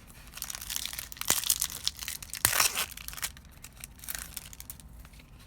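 Foil trading-card booster pack wrapper crinkling and tearing as it is opened, loudest between about one and three seconds in, then lighter rustling.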